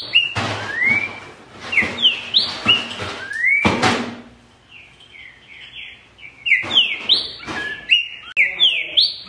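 Green-winged saltator (trinca-ferro) singing loud phrases of short whistled notes that slide up and down. The song comes in two runs with a short lull about five seconds in, and two brief rushes of noise fall in the first four seconds.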